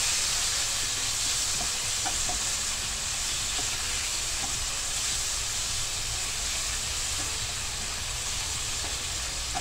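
Marinated beef slices sizzling in a nonstick frying pan as they are stirred with a plastic spatula: a steady hiss.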